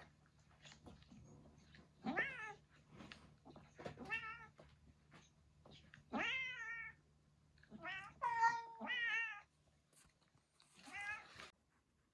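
A cat meowing repeatedly: about seven drawn-out calls with wavering pitch, spaced a second or two apart. The longest comes about halfway, and a quick run of three follows near the end.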